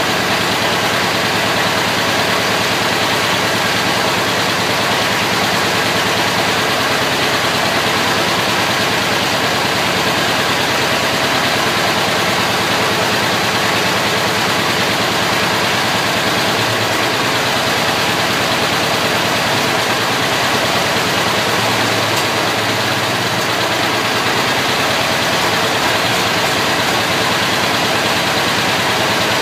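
Ford Model T four-cylinder side-valve engine running steadily at idle during its first start-up after being built.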